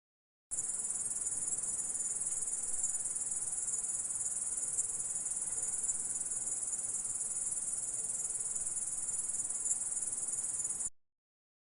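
Grasshopper stridulating: a steady, high-pitched, unbroken buzz that starts abruptly about half a second in and cuts off abruptly near the end.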